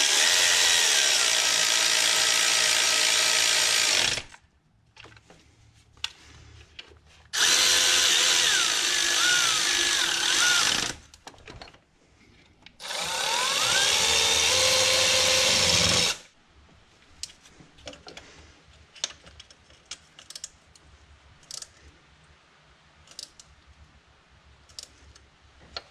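Power drill running in three separate runs of three to four seconds each, its motor pitch shifting up and down as the trigger is worked, driving in bolts. From about sixteen seconds in, only light clicks and taps of hand tools.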